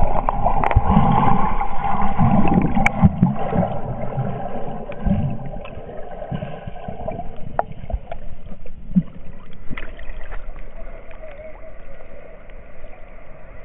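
Muffled water sloshing and gurgling heard through an underwater camera, with scattered knocks and thumps. It grows quieter about halfway through.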